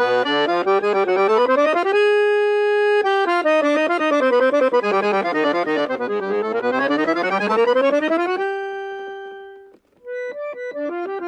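Accordion music: quick runs of notes climbing and falling, with a couple of long held chords. It dies away just before the end, then a new, bouncy accordion tune starts.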